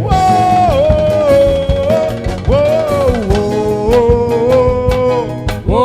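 Upbeat gospel worship band music: a steady drum beat under a held, sliding melody line between sung verses.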